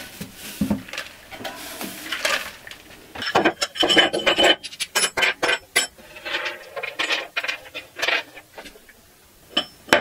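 A bench brush sweeping sawdust for the first couple of seconds, then a run of sharp metallic clinks and clatter as aluminium maker-slide extrusions and corner brackets are handled and set down on a workbench, dying away in the last seconds.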